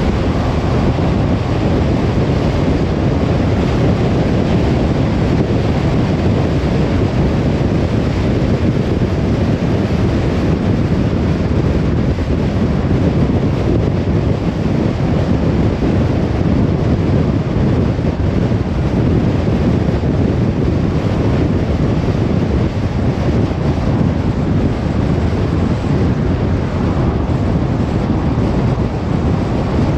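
Steady low road rumble of a car on the move, an even noise with no changes.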